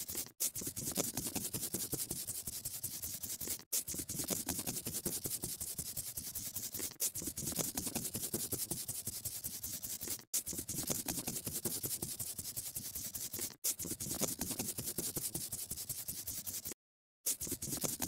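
Scratchy scribbling of colouring on paper: fast, rough back-and-forth strokes that run in stretches of about three seconds, each broken by a brief gap, with a half-second pause near the end.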